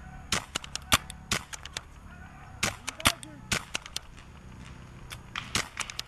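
Paintball markers firing: sharp pops, some in quick runs of two or three, spread unevenly through the whole time, with the loudest shots about one and three seconds in.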